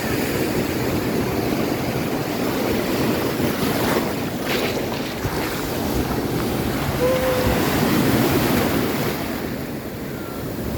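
Ocean surf breaking and washing on a beach, with wind buffeting the microphone.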